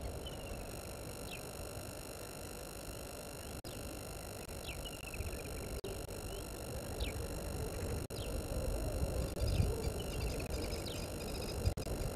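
Birds calling: short, sharp falling chirps every second or two, some trailing off into a quick falling run of notes, over a low rumble and a steady thin electronic whine.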